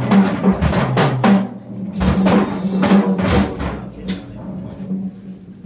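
Live free-jazz trio playing, led by a busy drum kit: rapid, irregular drum strokes and two cymbal crashes around the middle, over a sustained low note. The drumming thins out and gets quieter near the end.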